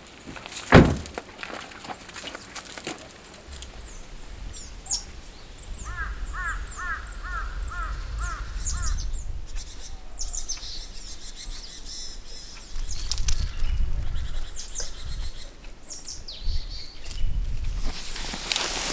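Birds calling: a quick run of about eight repeated calls in the middle, and small high chirps scattered throughout, over a low rumble. A sharp knock about a second in is the loudest sound.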